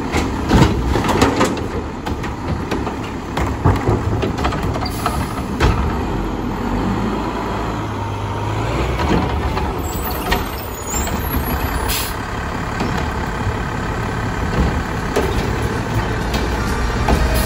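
Mack LEU front-loader garbage truck with a Heil Half/Pack body running, its diesel engine rumbling steadily under a scatter of sharp clanks and knocks. There are short bursts of air hiss, one about twelve seconds in.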